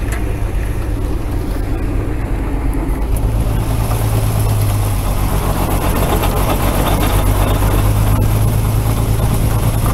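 Kaiser Jeep military truck's Tornado 230 overhead-cam straight-six running steadily as the truck rolls slowly, with a smooth, even hum after a new timing chain and gears; the engine is heard louder and clearer from about three seconds in.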